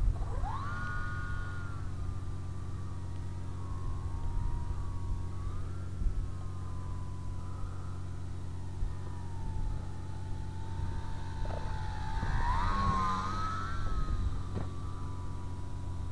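Electric RC plane's 1530kv brushless motor and cut-down 9-inch propeller whining in flight. The pitch climbs sharply about half a second in as the throttle opens, then drifts up and down with throttle, and wavers briefly past the middle as the plane passes. A steady low rumble lies underneath.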